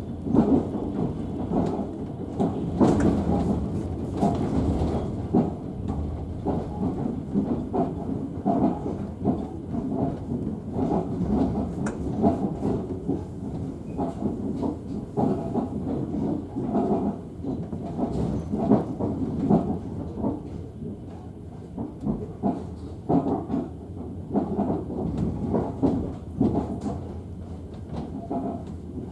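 Passenger train running on the rails, heard from aboard: a steady low rumble with dense rattling and clacking of the wheels, loudest in the first few seconds.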